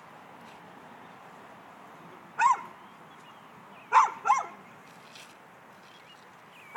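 A dog barking: short, sharp barks, one a couple of seconds in, a quick pair around the middle, and another at the very end.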